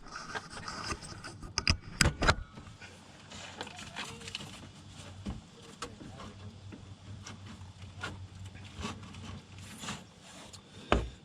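Clicks, clunks and scrapes of metal and plastic as a car's A/C condenser and radiator are pried and worked loose by hand with a screwdriver and rod; two louder knocks come about two seconds in.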